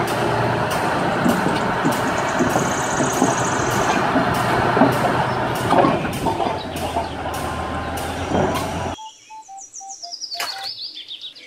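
Komatsu D475A crawler bulldozer's diesel engine running loud and steady, with regular clanks from its steel tracks about two or three times a second. It cuts off suddenly about nine seconds in, leaving faint bird-like chirping.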